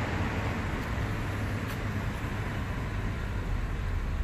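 Chevrolet Camaro's 3.6-litre V6 running at low speed as the car drives slowly up, a steady low engine sound.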